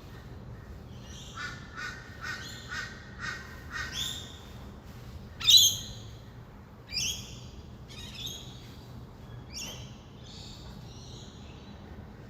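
Rainbow lorikeets calling: a quick run of short repeated calls, then several shrill screeches, the loudest about halfway through. A steady low hum of distant traffic runs underneath.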